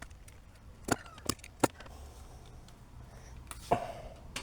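A few sharp, separate clicks and knocks from a knife and power lead being worked while the lead's outer sheath is scored and stripped.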